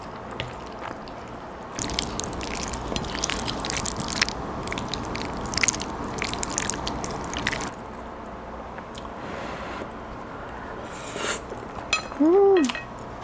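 Close-miked eating of creamy pasta: wet chewing and slurping clicks and smacks for about six seconds, starting about two seconds in. Near the end comes a short hummed "mmm" that rises and falls in pitch, the loudest sound.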